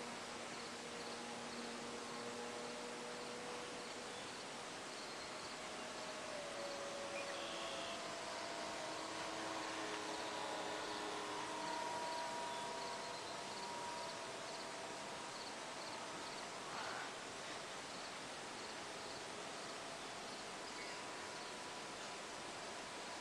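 Faint buzzing whine of a distant radio-controlled Great Plains Electric Cub in flight: its brushed Graupner Speed 600 motor turning an 8x6 propeller. The pitch drifts and glides as the plane moves about the sky, and it is a little louder around the middle.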